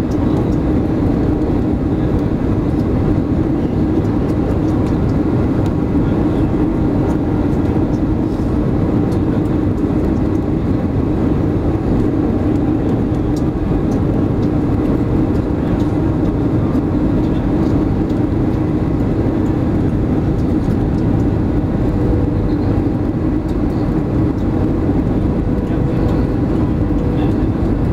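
Steady cabin roar of an Airbus A320 on final approach, engines and airflow heard from a window seat over the wing, with a faint steady hum running through it.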